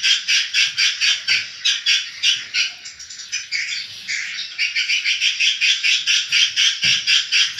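Swiftlet calls: a fast, even train of high chirps, about three a second, which goes quieter for a moment around three seconds in before carrying on.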